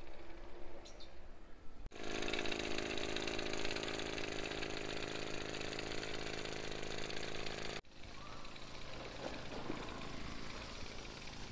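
Small engine of a backpack power sprayer running steadily at a constant pitch. It starts suddenly about two seconds in, and near eight seconds it drops to a fainter, noisier run.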